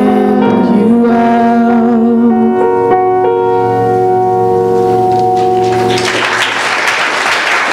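The final held notes of a sung duet with piano and acoustic guitar, ringing out and ending about six seconds in. Then the audience breaks into applause.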